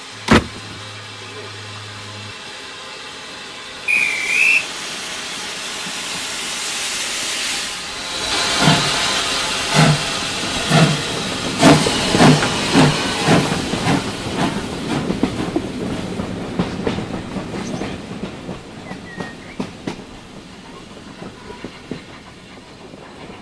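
Steam locomotive hissing, giving a short whistle toot about four seconds in, then pulling away with exhaust chuffs that start slowly about eight seconds in, quicken and fade into the distance.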